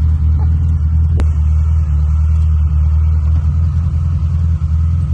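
A motor vehicle's engine running steadily with a low, even rumble. A single sharp click sounds about a second in.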